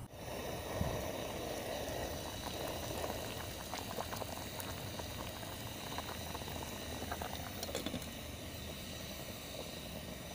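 Water at a rolling boil in a stainless steel pot of saba bananas: steady bubbling with scattered small pops.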